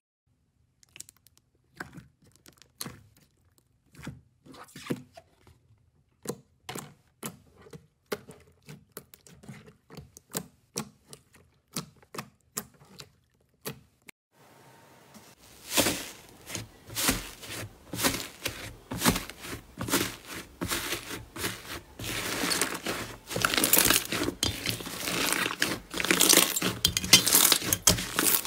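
Hands working slime: sparse, soft clicks and pops at first, then about halfway a dense run of crackling and squelching as the slime is pressed and folded, growing louder toward the end.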